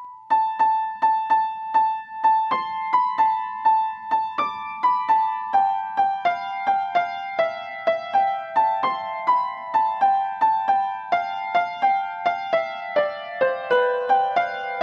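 Background music: a simple piano melody of single struck notes at a steady pace, about three a second, stepping down in pitch near the end.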